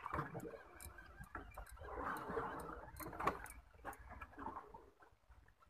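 Spinning reel being cranked to bring in a hooked fish on a bent jigging rod: faint, irregular clicking and rattling over a soft whir, dying away near the end.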